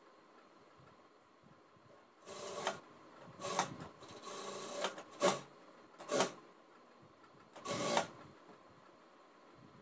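Cut pieces of blouse fabric rustling and sliding on the worktable as they are folded and arranged by hand, in about six short bursts starting about two seconds in.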